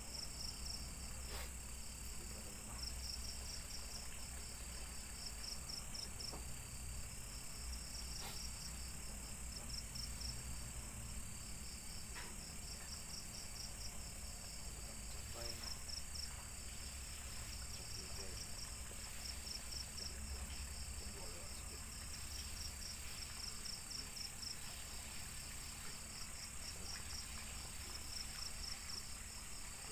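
Crickets chirping in short, rapidly pulsed bursts every second or two over a steady high-pitched insect trill, with a low rumble underneath.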